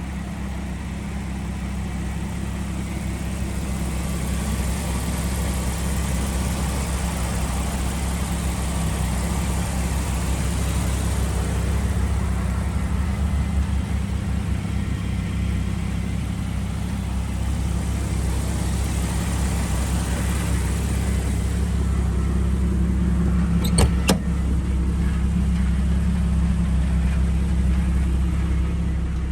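Jeep Wrangler TJ's 4.0-litre inline-six engine idling steadily, with a couple of sharp clicks near the end.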